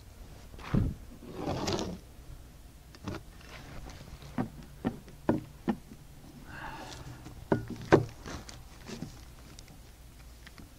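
A long level knocking, tapping and scraping against a house-wrapped plywood wall as it is set in place to mark cut lines, with about a dozen sharp taps, the loudest two close together about three-quarters through.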